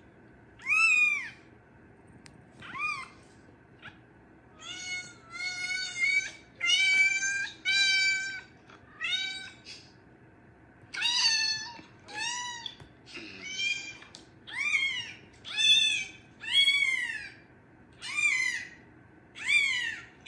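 Domestic cat meowing over and over: about fifteen separate meows, most rising and falling in pitch, with a run of flatter, longer mews about five to eight seconds in.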